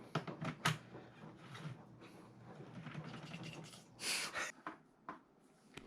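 Quiet clicks and handling noises of a humidifier's plastic parts being fitted around its dial, with a short rustling noise about four seconds in.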